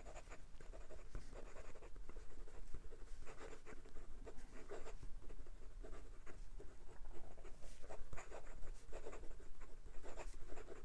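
Fountain pen with a 14-karat gold medium nib writing quickly in cursive on notebook paper: a run of short, irregular nib scratches, one after another, as each word is written.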